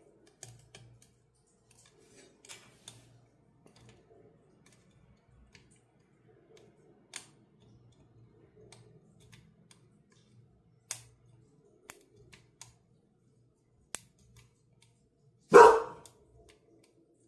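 Faint scattered clicks and scrapes of a half-diamond pick working the pins of an Abus EC75 brass dimple padlock. A dog barks once, loudly, near the end.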